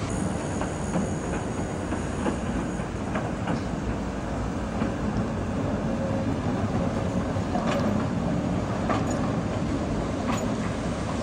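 Articulated electric tram running past on street track: a steady rumble of the running gear, with scattered sharp clicks and knocks as the wheels cross rail joints.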